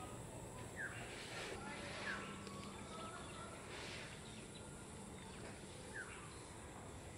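Faint outdoor lakeshore ambience in which a bird gives three short, downward-sliding chirps, spaced a second or more apart.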